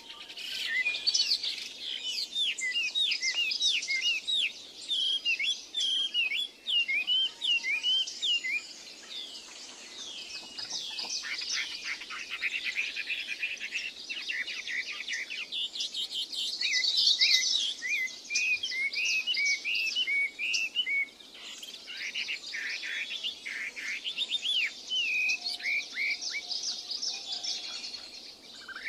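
Birds chirping in quick runs of short, sharply bending notes, one after another.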